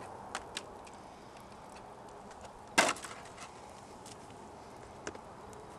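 An unsharpened CAS/Hanwei Tinker longsword striking a plastic jug target in a single sharp cutting blow about three seconds in, with a few light clicks of handling before it.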